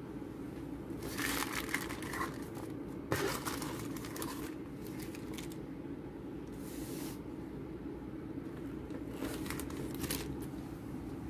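Thin plastic protective film crinkling in several short bursts as it is peeled by hand off a rubber dashboard mat, over a steady low hum.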